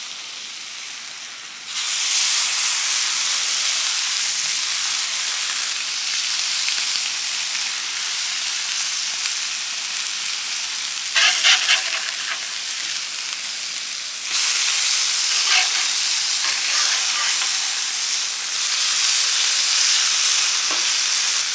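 Onions, mushrooms, squash and steak frying on the hot steel plate of a Blackstone Adventure Ready griddle: a steady sizzling hiss that gets louder about two seconds in and again a little past the middle. A metal spatula now and then scrapes and taps on the plate.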